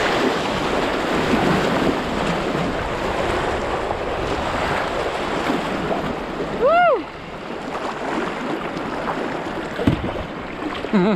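Rushing whitewater of a class 2 rapid around a kayak, with wind buffeting the microphone. A short rising-and-falling whoop cuts through about two-thirds of the way in.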